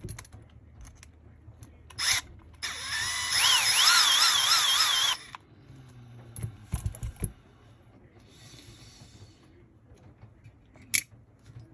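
A small cordless electric screwdriver gives a short buzz, then runs for about two and a half seconds with a whine that rises and then wavers as it unscrews the RC truck's caster block screws. A sharp click comes near the end.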